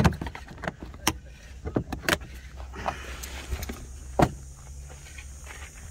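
Several clicks and knocks of hands handling plastic cargo-area trim in a 2007 Toyota FJ Cruiser, including the flip cover of the 115 V, 400 W power outlet, over a steady low hum. The loudest knock comes about four seconds in.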